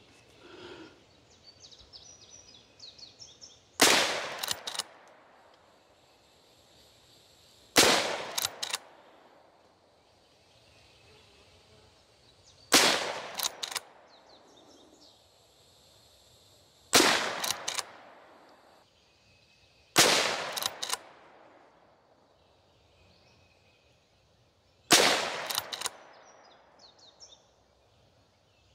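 Six rifle shots from a Winchester 9422M lever-action rifle in .22 Magnum, fired a few seconds apart. Each shot is followed by a short run of fainter clicks.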